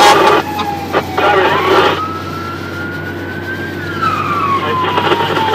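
Fire engine siren in a slow wail, heard from inside the cab: its pitch climbs for a few seconds, then slides back down, over the steady drone of the truck's engine. The first two seconds are louder and rougher.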